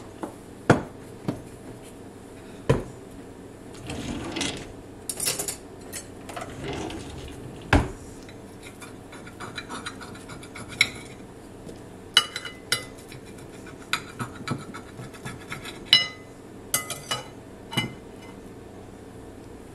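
Clinks and knocks on a ceramic plate, with stretches of scraping and rubbing as a sugar-coated pancake is handled on it. A few of the knocks are sharp and stand out, the loudest near the start and about eight seconds in.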